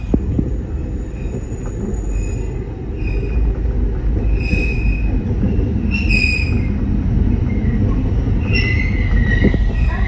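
Alishan Forest Railway narrow-gauge train running, heard from inside the carriage: a steady low rumble, with short high wheel squeals about four and a half and six seconds in and a longer squeal near the end.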